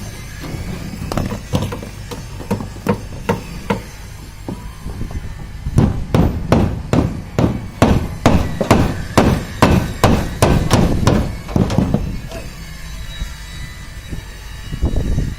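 Repeated hammer blows: a few strikes about two a second, then after a short pause a fast, steady run of about three blows a second lasting some six seconds.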